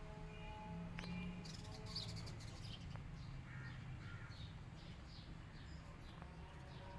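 Faint, rapid chirping from birds: a string of short, high, falling notes, two or three a second, over a steady low background rumble.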